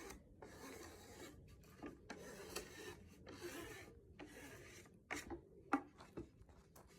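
Several faint rubbing strokes of wood being worked by hand, as with sandpaper or a rasp on a cedar board, each lasting half a second to a second. About five seconds in they give way to a few short light taps.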